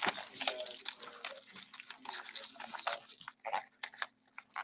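Clear plastic shrink wrap crinkling and tearing as it is pulled off a sealed card box, in a run of irregular crackles and rustles.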